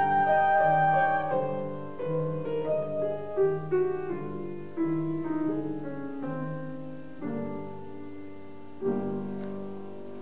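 A female singer's final held high note ends about a second in, and the piano carries on alone with a descending postlude of single notes, closing on two struck chords, the last left ringing.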